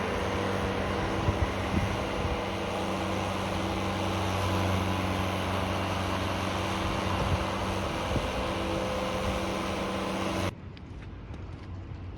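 A steady mechanical hum with a few held low tones, cutting off suddenly about ten and a half seconds in, leaving a quieter background with faint clicks.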